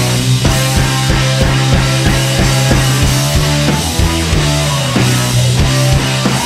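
Background music with a steady drum beat over sustained low notes.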